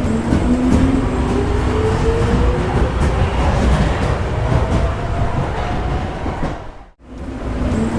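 Subway train pulling away: a low rumble with the whine of its motors rising slowly in pitch as it gathers speed, and faint clicks from the wheels. About seven seconds in, the sound fades out for a moment and the departure starts over.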